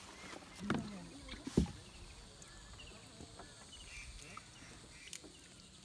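Quiet ambience aboard a small rowboat, with a single sharp knock on the boat about a second and a half in, a brief low murmur just before it, faint chirps and a light click near the end.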